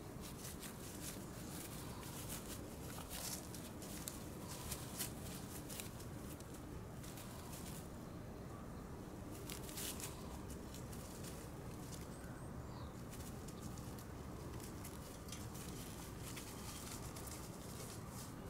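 Irregular rustling and light crackling of dry grass under the paws of a Shiba Inu and her black Shiba puppy as they scuffle and walk about, busiest in the first half. A faint steady outdoor hiss runs underneath.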